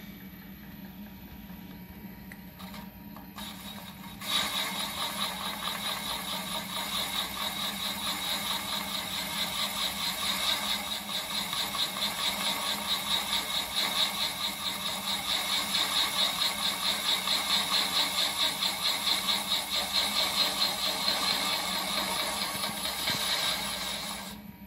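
Milling machine fly cutter boring out the bore of a painted cast power-feed housing. The spindle first runs with a steady hum. About four seconds in the cut starts: a loud metal-cutting noise with a fast, regular pulsing, which fades out near the end.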